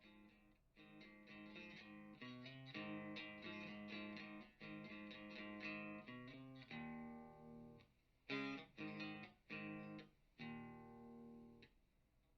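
Electric guitar played through an amplifier and speaker cabinet: picked notes and chords, then a few separate ringing chords with short gaps between them in the second half.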